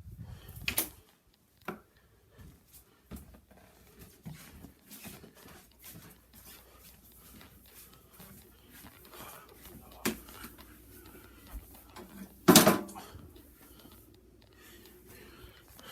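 Scattered clicks and knocks of dishes and kitchen things being handled, with one much louder clunk about three quarters of the way through.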